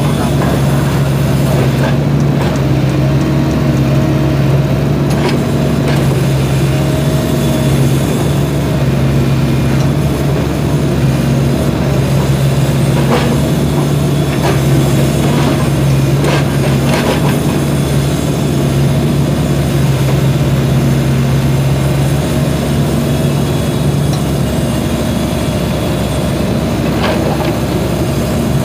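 SANY mini excavator's diesel engine running steadily under hydraulic load while it digs, the drone easing near the end. A few knocks from the bucket working the ground.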